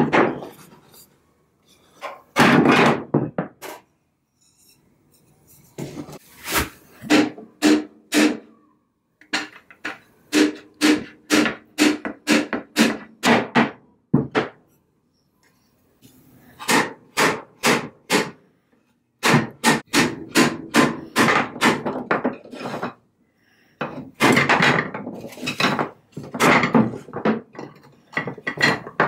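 Rubber mallet knocking on the wooden parts of an antique dining chair: bursts of sharp, quick blows, about three or four a second, with short pauses between the bursts.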